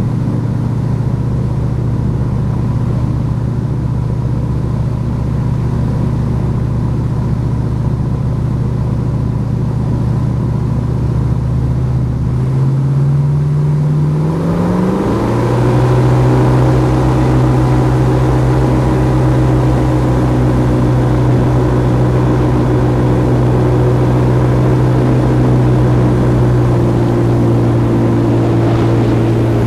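Airboat engine and propeller running steadily, then revving up about halfway through and holding at the higher speed.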